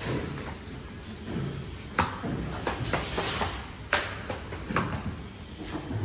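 Handling of a large sheet of projection-screen fabric on a worktable: sharp clicks and knocks, the loudest two about two and four seconds in, with a rustling swish of the sheet around three seconds in.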